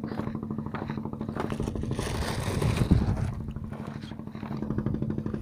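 A small engine running steadily with a fast, even putter. About two seconds in there is a short hissing scrape that ends in a thump.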